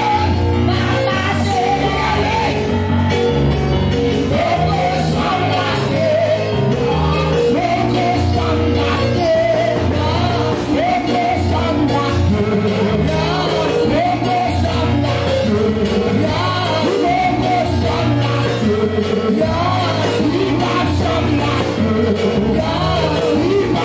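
Lively worship music: voices singing together over amplified backing with a steady stepping bass line, with shouts from the congregation.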